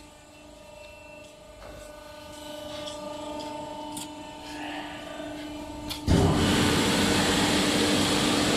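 An EPS foam pattern press hums faintly and steadily, with a few light handling clicks. About six seconds in, a loud, steady rushing noise starts abruptly.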